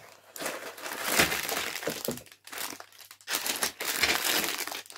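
Bags of 3D puzzle pieces crinkling and rustling in irregular bursts as they are handled and laid out.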